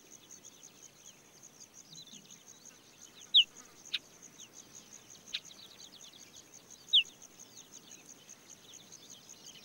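Steady, evenly pulsing high chirring of insects, with faint scattered chirps. Two short falling whistled calls stand out, about three and a half seconds apart, and there are a couple of sharp ticks between them.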